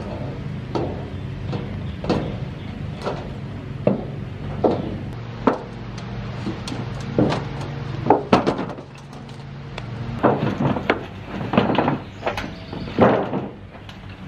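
A heavy log rolled and shoved across corrugated sheet-metal roofing panels: a string of knocks and thuds of wood on thin metal, sparse at first, then louder and closer together in the second half, over a steady low hum.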